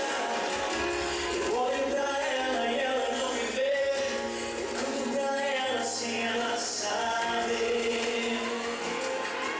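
A male vocalist singing live into a microphone over musical accompaniment, with a sustained bass line underneath.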